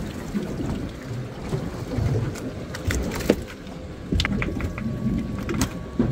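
Wind rumbling on the microphone aboard a small boat at sea, with a few sharp clicks and knocks scattered through it, the loudest about three seconds in.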